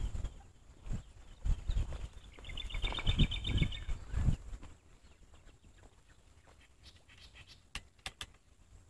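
Footsteps on a stony dirt track, with the grass being brushed. For about a second and a half near the middle of the first half, a bird sings a fast chirping trill. After that it goes quiet except for a few sharp clicks near the end.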